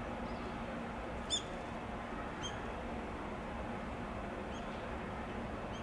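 An EF210 electric freight locomotive and its train approaching with a low, steady rumble, while a small bird gives four short high chirps, the loudest about a second in.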